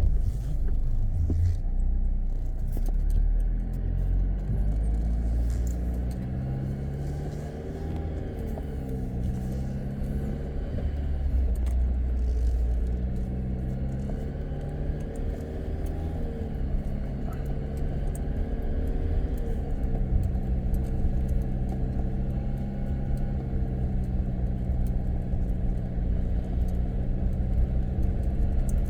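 Jeep Wrangler Rubicon engine running under load while driving on soft beach sand, its pitch rising and falling as the throttle changes, over a heavy low rumble.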